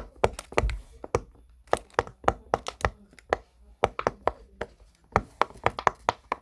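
Silicone pop-it push-pop fidget toy, its bubbles pressed one after another, each one giving a sharp pop, several a second at an uneven pace.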